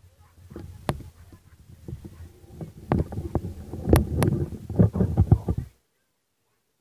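Handling noise on the camera's own microphone: a run of knocks and rubbing over a low rumble, growing louder, then cutting off into dead silence about two-thirds of the way through.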